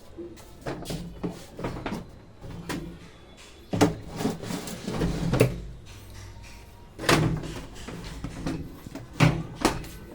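Irregular knocks and clunks of washing machine parts being handled and moved into place during reassembly, with four louder clunks spread through.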